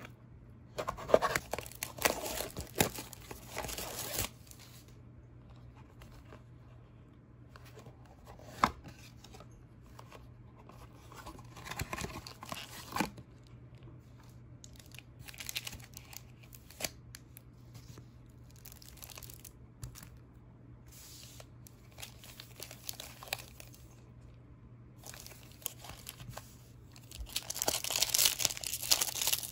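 Plastic shrink wrap torn and crinkled off a Pokémon Astral Radiance Build & Battle box in short bursts, with quieter handling between. Near the end a foil booster pack is torn open and crinkled, the loudest part.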